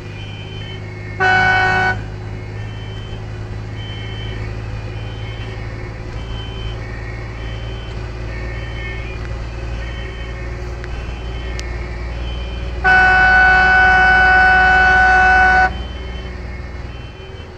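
Fire engine's air horn sounded twice, a short blast about a second in and a long blast of about three seconds near the end, heard from inside the cab. Underneath, the truck's engine runs steadily and a two-tone siren alternates high and low.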